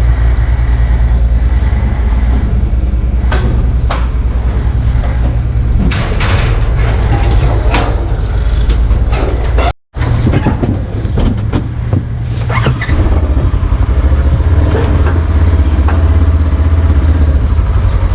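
Steady low engine drone with scattered knocks and clatters of straw bales being handled. The sound cuts out for an instant about ten seconds in.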